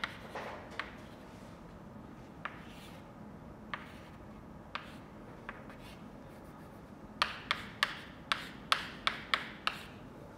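Chalk writing on a chalkboard: a few scattered taps and strokes, then a quick run of about ten sharp taps near the end as symbols are written.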